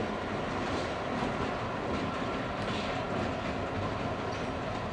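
Two Vermont Railway diesel locomotives passing at low speed, their engines running steadily, with a few clicks of the wheels over rail joints and switchwork.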